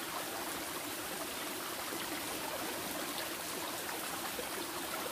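Shallow mountain stream running over rocks: a steady, even rush of water.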